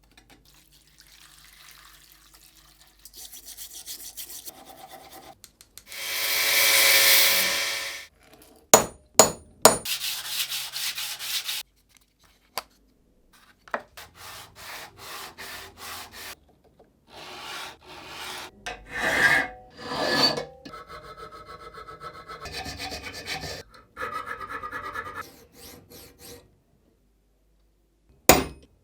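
Rubbing, scraping and filing strokes on rusty steel pliers as they are cleaned, in a series of short stretches. About six seconds in comes a loud steady stretch of about two seconds, followed by several sharp clicks.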